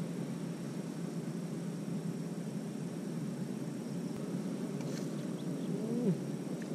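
Steady outdoor background noise, a low rumbling hiss, with faint steady insect tones high up. A brief pitched sound rises and falls about six seconds in.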